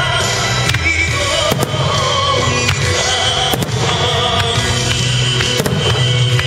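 Aerial firework shells bursting with several sharp bangs, over music playing alongside the display.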